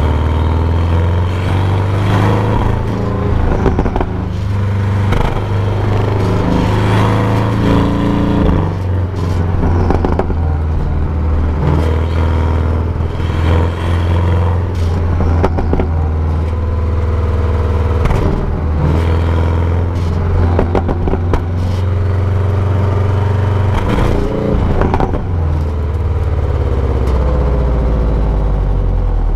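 Exhaust of a Porsche 718 Cayman GTS's turbocharged flat-four on the stock exhaust, picked up close to the tailpipe while the car is driven. The engine note rises and falls repeatedly as the revs change.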